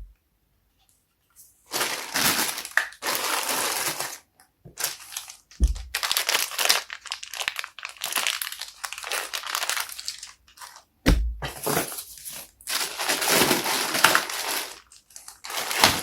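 Crinkling and crunching handling noise in irregular bursts, with a short low thump about five and a half seconds in and another about eleven seconds in.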